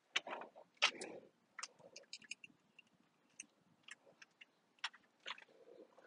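Faint, scattered clicks, taps and short rustles of hands working inside a car door behind its peeled-back plastic moisture barrier, at irregular moments with no steady sound.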